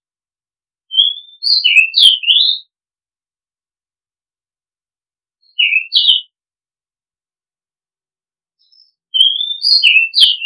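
Oriental magpie-robin singing: three short phrases of clear, sliding whistled notes, about a second in, around six seconds in and near the end, the first and last phrases much alike.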